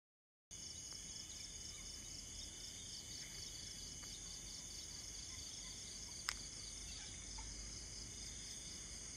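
A steady chorus of insects, pulsing high and fast at about four beats a second over a faint steady whine, starting after half a second of dead silence. A single sharp click comes about six seconds in.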